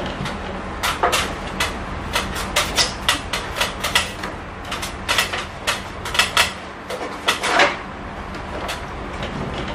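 Gloved hand scrubbing and wiping inside the plastic body of a split air-conditioner's indoor unit, giving irregular rubbing scrapes and light knocks over a low steady hum.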